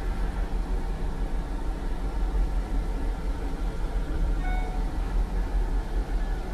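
Steady low rumble of a Sprinter van on the road, heard inside its cabin. A short, faint electronic tone sounds about four and a half seconds in.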